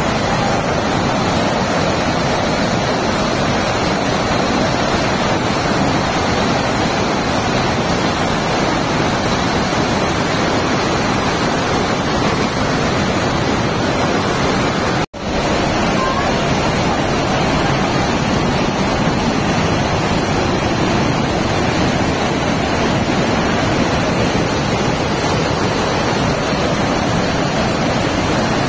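Steady loud rush of Iguazu Falls' massive waterfalls pouring into the river gorge, heard close up through heavy spray. The sound drops out completely for a split second about halfway through.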